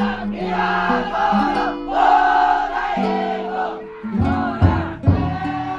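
A crowd of festival bearers chanting and singing together in held notes. From about four seconds in, heavy drum beats come in at about two a second, from the big drum inside the futon daiko.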